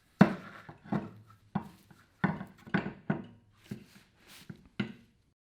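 Wheel and tire being lifted onto a floor scraper's hub pilot and seated, giving about nine irregular clunks and knocks, each ringing briefly, that stop near the end.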